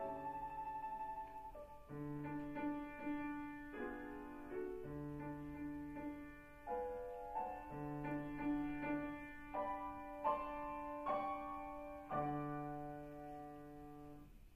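Domra with grand piano accompaniment playing a classical piece; the piano strikes chords every second or so under the melody, and the music dies away near the end.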